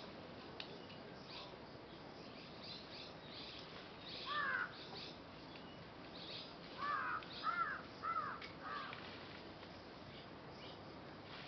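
A crow cawing: one caw about four seconds in, then four caws in quick succession a couple of seconds later, over faint high-pitched chirping of small birds.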